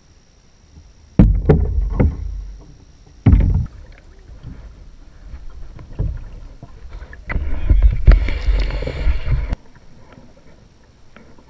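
Kayak paddling close to a camera mounted on the kayak: loud knocks and bumps about one and three seconds in, then paddle strokes with water splashing and dripping off the blade, loudest near the end.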